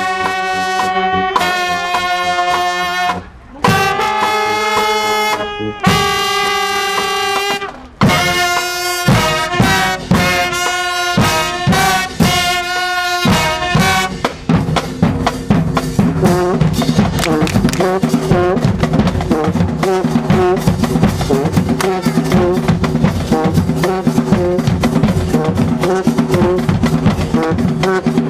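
High school marching band playing. The brass holds long, loud chords with short breaks, then moves into shorter notes. About halfway through, the drums take over with a fast, dense rhythm under the band.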